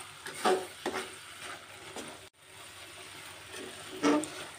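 Metal spatula scraping and stirring sliced onions and chillies around an aluminium wok over a faint frying sizzle, with louder scrapes about half a second in, just after, and again near the end. The sound cuts out for an instant in the middle.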